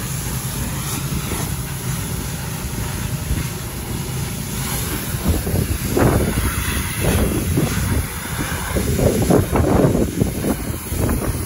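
Pressure washer running, its wand spraying a hard jet of water against a monster truck's chassis and tires: a steady hiss over a low rumble, with uneven louder gusts in the second half.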